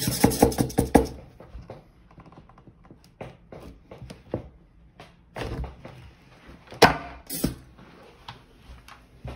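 Clicks, taps and knocks of a suction-cup lifter and bar clamps on glass as the two panes of a dual-pane RV window are worked apart. It opens with a loud rapid run of clicks lasting about a second, then scattered sharp taps and thunks, the loudest about five and a half and seven seconds in.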